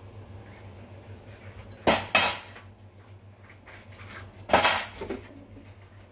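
Dishes clattering at a kitchen sink during dishwashing: two loud clatters, about two seconds in and again about four and a half seconds in, with lighter clinks between them.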